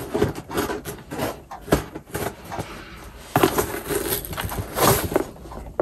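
Scissors cutting open a cardboard mailer box and its packing tape, with cardboard scraping, rustling and knocking as the box is handled; a string of irregular snips and clicks.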